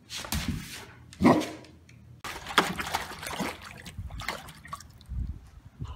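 A dog vocalizes loudly about a second in, then water splashes and sloshes repeatedly in a small plastic paddling pool as a dog thrashes around in it.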